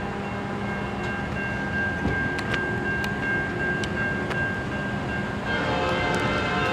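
Approaching train led by a GE Evolution Series (GEVO) diesel locomotive: a steady high tone runs throughout, and about five and a half seconds in a deeper chord of several steady tones comes in and grows a little louder.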